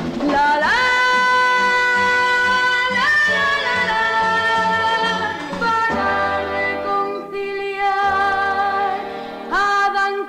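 A woman singing a few long, wordless held notes, each sliding into its pitch, over orchestral accompaniment with strings.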